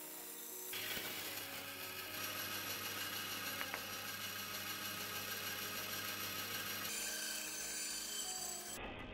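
Band saw running with a steady hum, its narrow blade cutting a tight curve through a softwood board. The machine sound comes in about a second in and drops back near the end.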